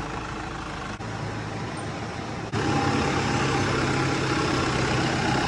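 Vehicle engine running steadily, with a step up in level about two and a half seconds in.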